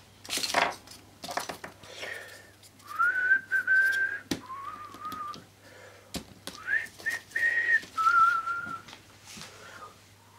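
A person whistling a slow tune, single held notes with small slides between them. Paper rustles early on, and two sharp knocks come about four and six seconds in.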